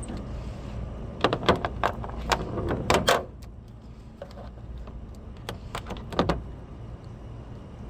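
Sharp clicks and clinks of hand tools and small parts being handled while working on a tail light, in a quick cluster about a second in and a few more near six seconds, over a low steady rumble.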